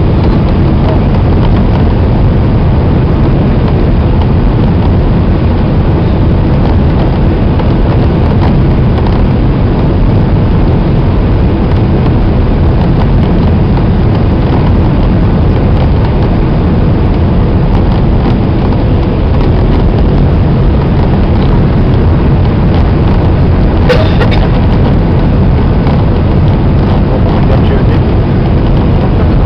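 Steady, loud cabin noise of a Boeing 767-300 on landing approach: jet engines and rushing airflow heard from a seat over the wing, heaviest in the low range. A single short click sounds late on.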